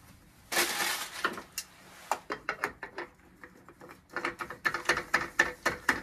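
Hands working on a small marine diesel engine during a service: a brief rustle about half a second in, then irregular runs of small clicks and knocks as parts and tools are handled, coming quicker in the second half.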